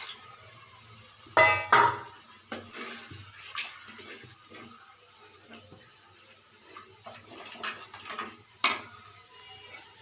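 Tamarind water poured from a vessel into the cooking pan, with metal clanks and scrapes of the vessel and spoon against the pan; the loudest clank comes about a second and a half in, followed by scattered lighter clicks.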